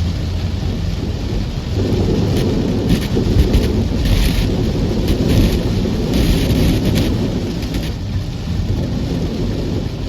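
Car driving through heavy rain on flooded streets, heard from inside: a steady low road-and-engine rumble under the rain, with hissing surges of water about four and six seconds in.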